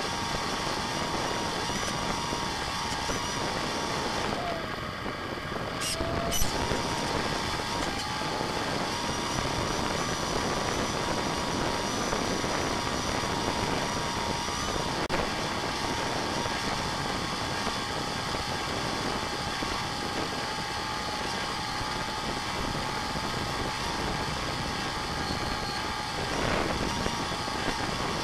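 A radio-controlled FPV model plane's motor and propeller running at a steady pitch with rushing wind, heard from the onboard camera. About four seconds in the pitch drops and the sound eases off for a couple of seconds, then two sharp clicks come and the steady pitch returns.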